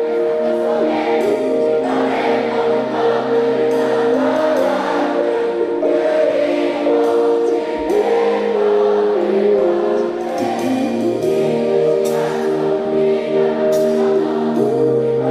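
A slow pop ballad: held chords with a sung melody wavering over them, the chords changing every few seconds.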